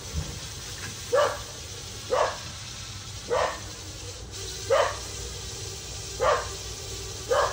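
A dog barking repeatedly at an even pace, about one bark every second or so, six or seven barks in all.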